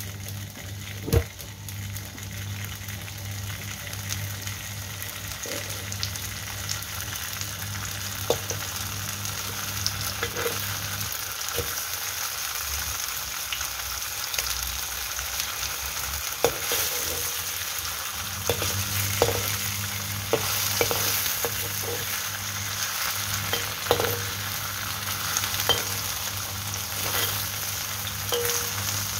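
Slices of Chinese New Year cake sizzling steadily as they pan-fry in oil in a wok, growing a little louder over time. Scattered sharp clinks of a metal spatula against the wok as the slices are moved and turned. A low steady hum underneath drops out for several seconds in the middle.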